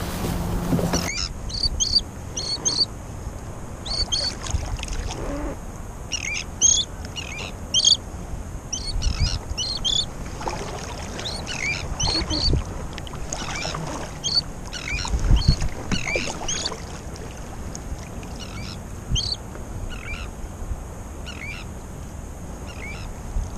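Terns calling, a juvenile and its adult parent: many short, high calls in uneven runs, sometimes several a second, over low water noise with a few low thumps.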